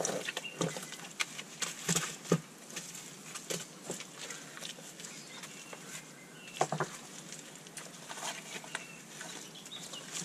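Digging in wet clay mud: scattered sharp knocks and scrapes from shovels and clods being worked, with a few louder knocks about two seconds in and again near seven seconds.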